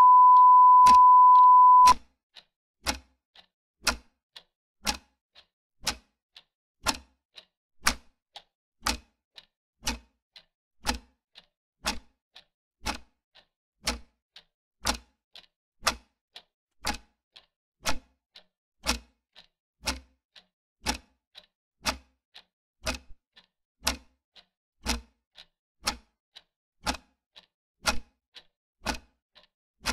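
A steady high beep for about two seconds, ending a video countdown, then a clock ticking evenly, about two ticks a second with a loud-soft tick-tock pattern.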